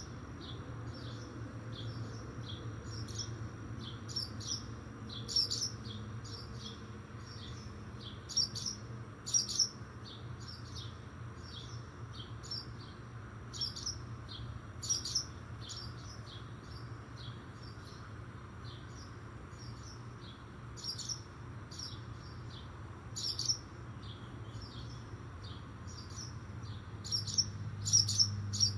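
Nestling birds chirping: short high chirps repeated about twice a second, with louder clusters of chirps now and then, over a steady low hum.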